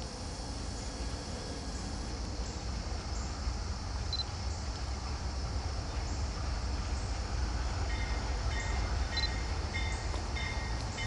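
Diesel freight locomotive approaching, a low rumble slowly growing louder, with insects buzzing steadily. From about eight seconds in, the locomotive bell rings in a steady repeating clang.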